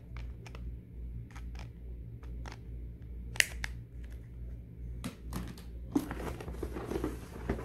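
Small plastic clicks and taps as a mobile phone's case and battery cover are handled. From about six seconds in, a denser rustling and scraping of a cardboard shipping box as a hand rummages inside it.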